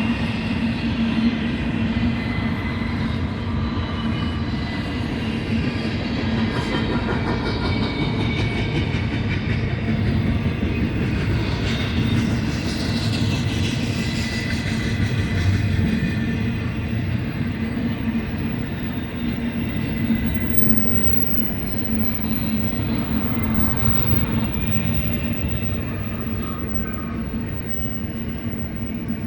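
Freight train cars rolling past on the rails: a steady, continuous rumble with thin high-pitched wheel squeals coming and going.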